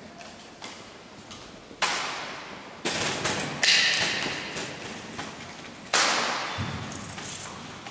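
Drill rifle being handled in a solo exhibition drill routine: a string of sharp slaps of hands on the rifle and knocks of the rifle on the concrete floor, spaced a second or more apart, each ringing out in the long echo of a large hall. A brief metallic rattle rings with one of the hits a little over three and a half seconds in.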